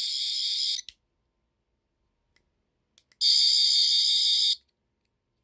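Toy sonic screwdriver (12th Doctor replica) playing its high, buzzing electronic sound effect through its small speaker, twice. The first buzz stops with a click just under a second in; after a pause and a couple of button clicks, the second runs about a second and a half, starting about three seconds in.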